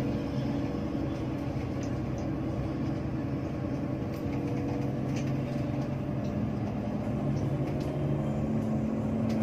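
Hino RK8 R260 bus's six-cylinder diesel engine running steadily while cruising, heard from inside the cabin with road noise and a few light clicks.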